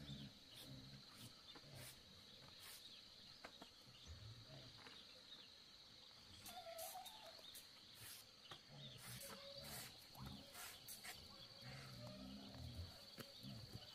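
Near silence: faint outdoor background with a steady high thin tone, scattered soft clicks and a few low, dull sounds.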